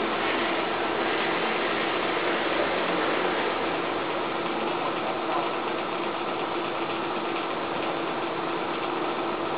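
A small motor-driven blower running steadily, a constant hum over rushing air, feeding forced air into the charcoal fire of a mini kiln during a high-temperature firing.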